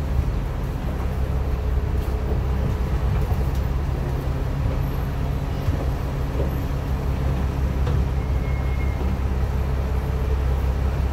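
A KMB bus's diesel engine idling steadily, heard from inside the passenger cabin as an even low rumble.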